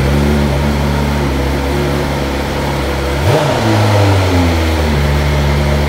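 BMW S1000RR's inline-four engine idling just after a cold start, with the revs rising briefly about three seconds in before settling back.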